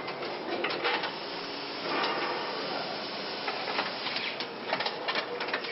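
Car assembly-line noise: a steady hiss of factory machinery with irregular clicks and clatters of tools and parts being handled.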